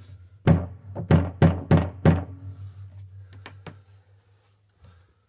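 Wooden mallet knocking at the sealed plastic cap of a boat's fresh-water tank to loosen it: five heavy knocks in quick succession, then lighter taps that die away.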